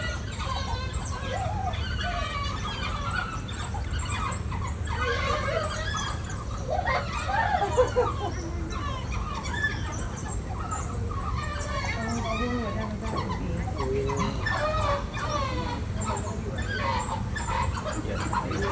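African painted dogs twittering and squealing: many short, high-pitched chirping calls overlapping one another, with a louder flurry about eight seconds in.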